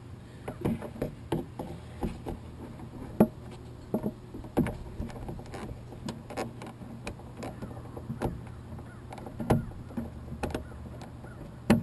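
Irregular clicks and knocks of needle-nose pliers and fingers working a small plastic wiring clip on the mirror wire inside a Ford Mustang's door, twisting it to pop it loose. A steady low hum runs underneath.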